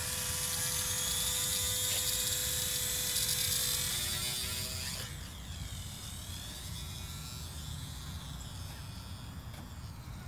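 Small electric motor and propeller of a 22-inch foam RC model plane whining at high speed. The whine is loud and steady for about five seconds, then drops off and turns fainter, its pitch sweeping down and up as the plane flies away.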